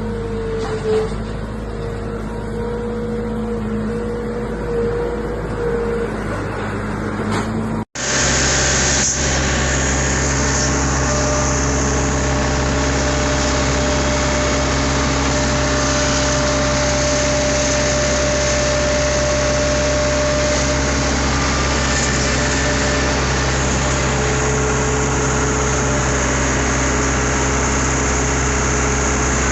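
Farm machine engine running steadily, heard from the operator's seat. About eight seconds in the sound cuts off for a moment and resumes as a fuller, even engine hum.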